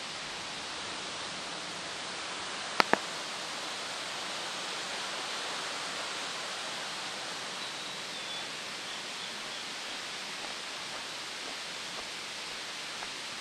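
Steady rushing outdoor noise, with two sharp clicks close together about three seconds in.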